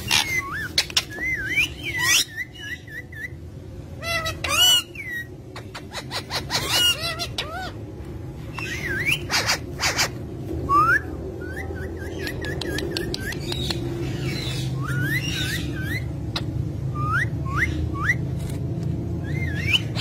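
Indian ringneck parakeets chirping and whistling: warbling chirps mixed with short, quick rising whistled notes and a few clicks, coming in bursts with brief gaps.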